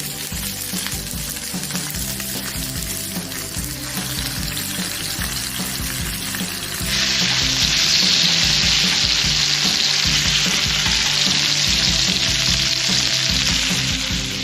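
Pork belly sizzling on a cast-iron cauldron-lid griddle, a steady frying hiss that turns louder about seven seconds in.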